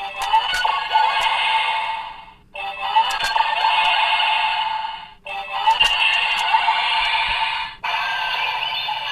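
DX R/B Gyro transformation toy playing its electronic henshin sound clips through its small, tinny speaker: short bursts of music and synthetic voice about two seconds each, cut off and restarted three times. Each restart comes with light plastic clicks as the toy is worked.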